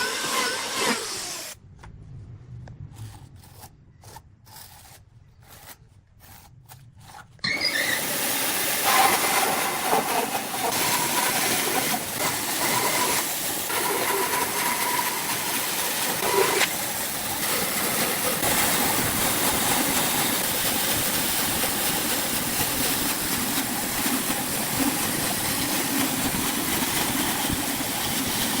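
Woodworking power tool running steadily. For several seconds near the start the sound drops away to a much quieter, broken stretch, then comes back loud.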